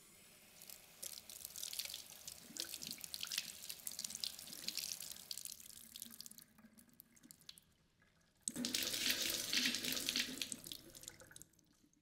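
Water running from a kitchen mixer tap and splashing onto a cloth held under the stream, in two spells: the first fades about halfway through, and a louder second spell begins about two-thirds in and stops suddenly near the end.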